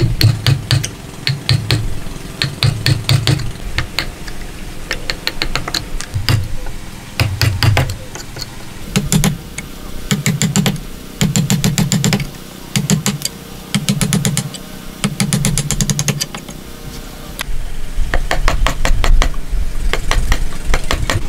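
A wood chisel driven into a hardwood beam by quick mallet taps, in bursts of several rapid strikes separated by short pauses, each strike a sharp knock with a dull thud from the workbench.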